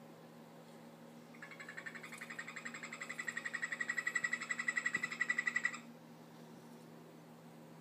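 Golden poison frog (Phyllobates terribilis) advertisement call: a rapid buzzy trill of evenly spaced pulses that starts about a second and a half in, grows louder for about four seconds and stops abruptly.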